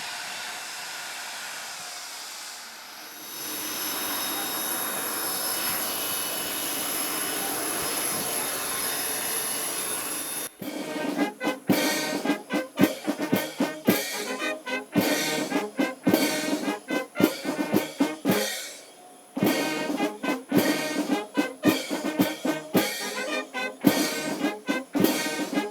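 A steady rushing noise, then, about ten seconds in, a brass band with drums starts playing loudly in a steady, beat-driven rhythm, breaking off briefly about halfway through before carrying on.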